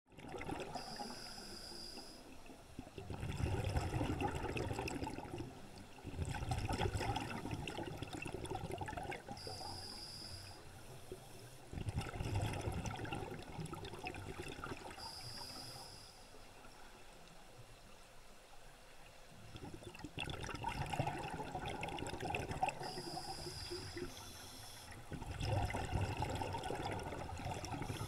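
A scuba diver breathing through a regulator underwater. Each breath is a short hiss as the regulator feeds air, followed by a longer spell of bubbling and rumbling as exhaled air leaves the exhaust, repeating several times at an uneven pace.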